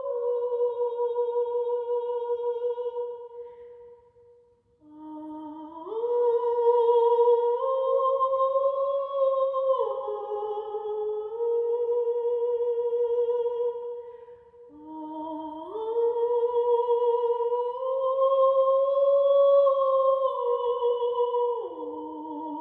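A singer's wordless healing voice: long held vowel tones with vibrato, sliding slowly from one pitch to the next. The sound dies away about four seconds in and resumes a second later with a low note that slides upward.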